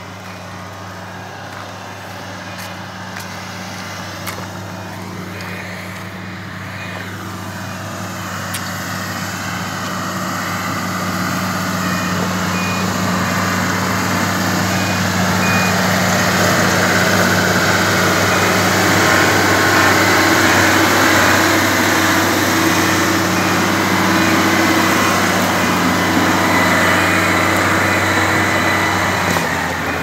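Komatsu motor grader's diesel engine running, growing steadily louder over the first half as the grader drives up, then holding steady close by.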